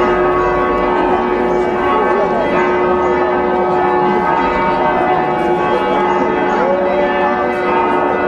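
Church bells ringing continuously, many ringing tones overlapping, with a crowd chattering underneath.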